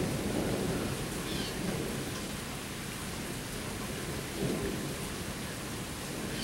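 Steady rain falling in a thunderstorm, a constant even hiss, with a low rumble of thunder underneath.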